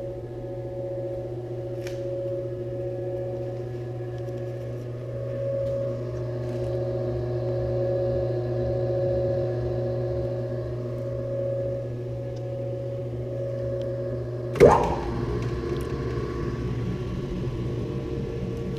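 BEcom BE-HYM 75 fork mixer running with an empty bowl: a steady motor hum with a whir that pulses at a regular rate as the fork and bowl turn. About three-quarters of the way through comes a sharp clunk, after which the running sound changes to a rougher tone.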